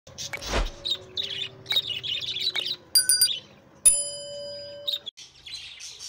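Budgerigars chattering and chirping in a busy flock, with a low whoosh about half a second in and two bright chime strikes at about three and four seconds, the second ringing on for about a second.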